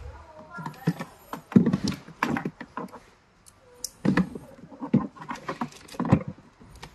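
Irregular clicks, knocks and rattles of a small battery being handled and seated in a plastic battery compartment, with its wire connectors pushed onto the terminals.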